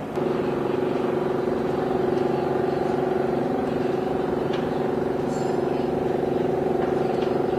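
Steady engine drone: an even hum that holds one pitch throughout, starting abruptly right at the beginning.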